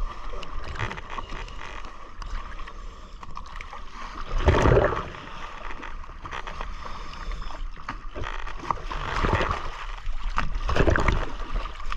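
Choppy sea water sloshing and splashing around a camera at the surface, with louder surges about four and a half seconds in and twice near the end, over a steady hum.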